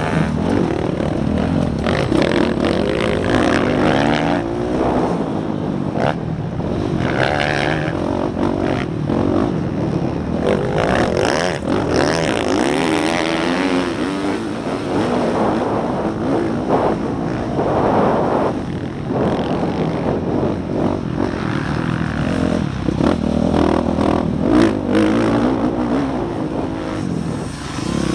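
Motocross bike engine heard from onboard the bike, revving up and down again and again through throttle and gear changes, with wind noise on the microphone.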